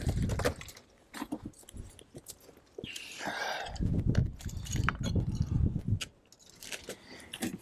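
Gritty scraping, crunching and light knocks of stone and mortar as the cover slab of a columbarium niche is worked loose by hand, with a longer scrape about three seconds in.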